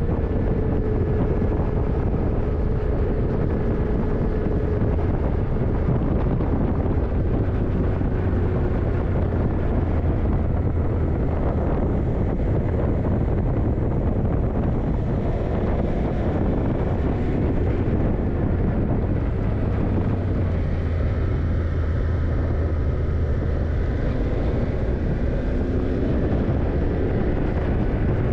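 Yamaha TDM900's 900 cc parallel-twin engine running steadily as the motorcycle cruises, with wind rush on the microphone. The engine note sinks slowly over the first few seconds and climbs a little again near the end.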